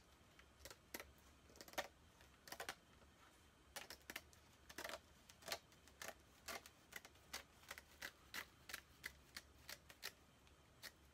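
Scissors snipping through the cab's woven grill cloth in a run of short crisp cuts, sparse at first, then about two or three a second.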